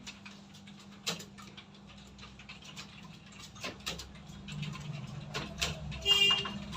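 Computer keyboards being typed on by several people at once: irregular, overlapping key clicks over a steady low hum. About six seconds in there is a brief pitched sound.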